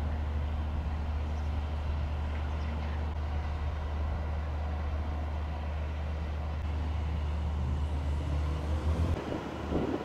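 Steady low engine rumble that stops abruptly about nine seconds in, followed by wind buffeting the microphone.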